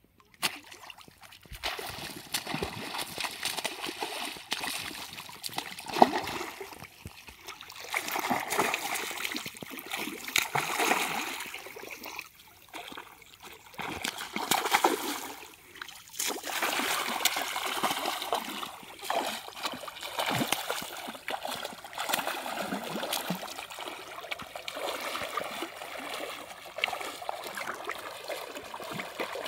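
A hooked fish thrashing at the water's surface on a fishing line, splashing again and again in surges, with water sloshing around a person wading through shallow river water.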